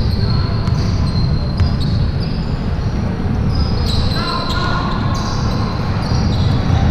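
Basketball game in play on an indoor court: a ball bouncing on the floor under a steady low rumble, with short high squeaks about four to five seconds in.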